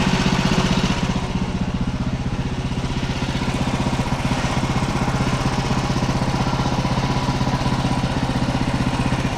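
The manual bandsaw sawmill's gas engine running steadily at speed. A higher hiss over the engine note eases about a second in.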